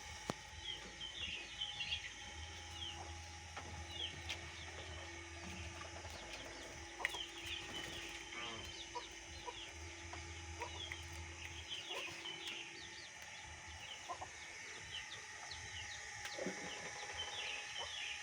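Birds chirping in quick repeated clusters of short high notes. A low steady hum sounds underneath through the middle of the stretch, then stops.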